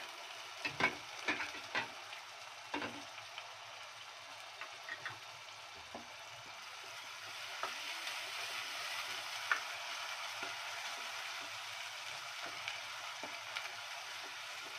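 Ginger-garlic paste and onions sizzling in hot oil in a pot while being stirred with a spatula. A few sharp knocks of utensils against the pot come in the first few seconds, and the sizzle grows louder about halfway through.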